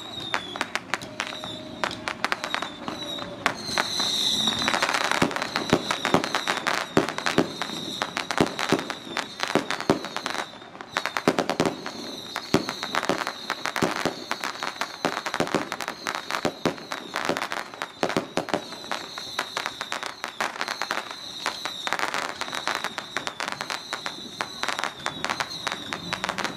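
Strings of firecrackers going off in a dense, irregular crackle of rapid bangs, heaviest a few seconds in.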